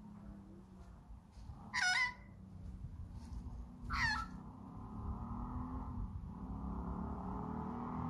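Young Australian magpie giving two short, loud calls about two seconds apart, each falling in pitch. A quieter, steady sound carries on through the second half.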